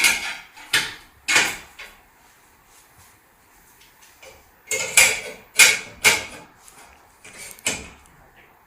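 Sharp knocks and thuds during a chiropractic adjustment: three in the first second and a half, then four more in quick succession around five to six seconds in, and a last one near the end.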